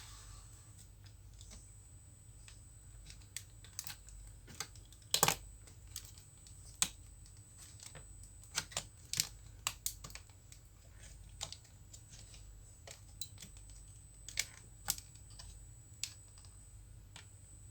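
Irregular clicks and taps of a Dell Latitude E5470 laptop's parts being handled during disassembly, with the loudest knock about five seconds in. A faint steady hum and thin high whine run underneath.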